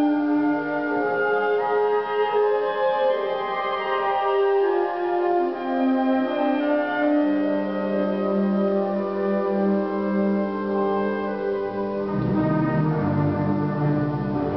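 Wind band playing slow, sustained chords, clarinets and flutes among them. Low instruments come in more strongly about twelve seconds in.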